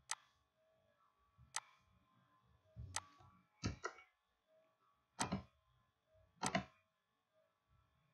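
Computer mouse and keyboard clicks: about half a dozen sharp, faint clicks spaced a second or so apart, a few coming in quick clusters.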